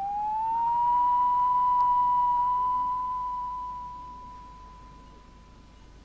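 Electronic tone sliding up in pitch, then holding one steady note before fading out about four seconds in: a title-sequence sting.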